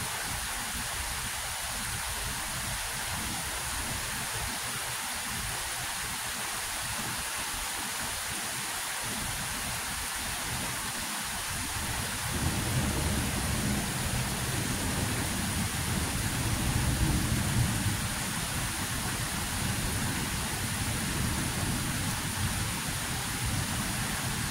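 Thunderstorm: steady rain hiss, with a long low rumble of thunder that builds about halfway through and carries on to the end.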